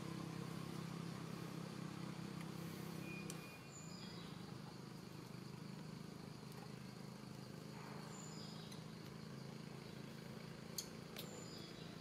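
Quiet outdoor ambience: a steady low drone with a few faint, short high chirps, and a couple of small ticks near the end.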